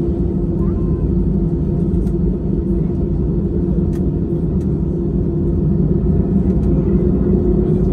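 Cabin noise of an Airbus A320-family airliner taxiing: a steady low rumble and hum of the jet engines and airflow heard through the cabin, growing a little louder near the end.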